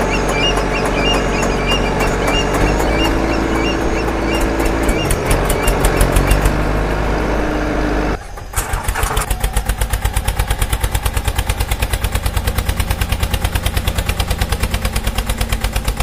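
Vehicle engine sound effect: an engine running loudly and steadily, switching abruptly about eight seconds in to an even, rapid putter like an engine at idle.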